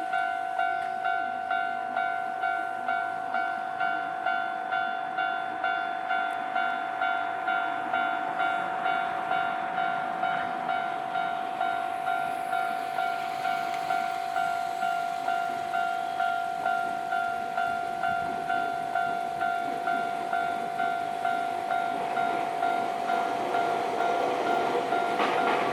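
Japanese level-crossing warning bell ringing, a steady electronic ding repeated about twice a second. Under it an approaching train's rumble builds through the second half and grows loud near the end.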